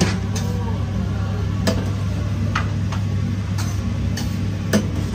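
A metal serving spoon clinking against a ceramic bowl and stainless-steel steam-table trays while food is ladled out, a handful of sharp, unevenly spaced clinks. Under it runs a steady low electrical hum.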